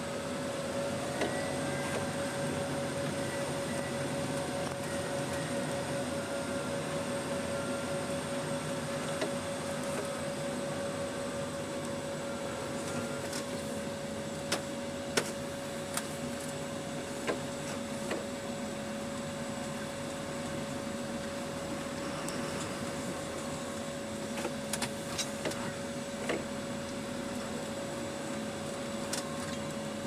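Large tractor's engine running steadily, heard from inside the cab, with a constant whine held over the engine and a few sharp clicks and knocks.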